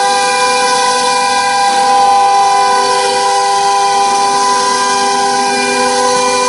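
OMNI 1325 CNC router spindle running at speed while its bit engraves a groove in a wood-based board, a steady multi-toned whine over the hiss of cutting.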